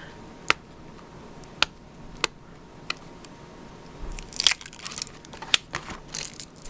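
Packaging being opened by hand on a new paper daybook: a few separate sharp clicks, then a dense run of crackling and rustling from about four seconds in.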